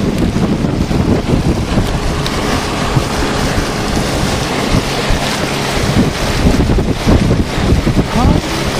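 Wind buffeting the microphone on an open boat deck, a steady rumbling rush with a faint low hum underneath.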